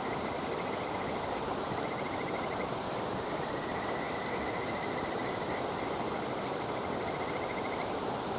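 An insect trilling in repeated pulsing runs over a steady rushing hiss, with a couple of faint crackles from the burning wood fire.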